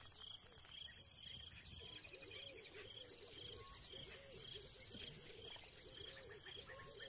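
Faint bush ambience: a steady high insect drone with a short chirp repeating about twice a second. From about two seconds in there is also a low call repeated rapidly.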